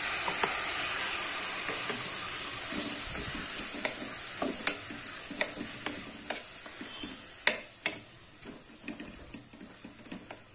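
Chopped tomatoes sizzling as they land in hot oil with frying onions in an aluminium pressure cooker, the sizzle loudest at the start and slowly dying down. A wooden spatula stirs them, scraping and now and then knocking sharply against the pot.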